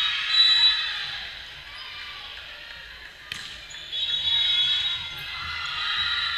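Busy volleyball-hall ambience: many voices echoing under the high roof, swelling and fading, with a single sharp smack of a volleyball being hit a little past three seconds in.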